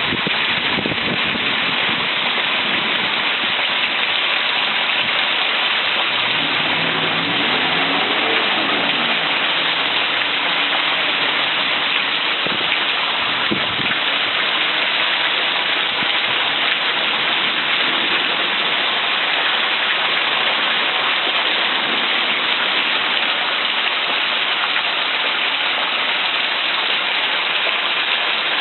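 Heavy rain pouring down steadily in a severe thunderstorm, an even, dense hiss. About seven seconds in, a faint pitched hum rises and falls for a few seconds beneath it.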